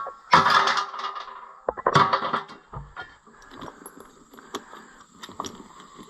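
Metal clanking and rattling of wheel bolts and tools being handled: a loud clatter with ringing in the first second, another about two seconds in, then scattered light clicks and knocks.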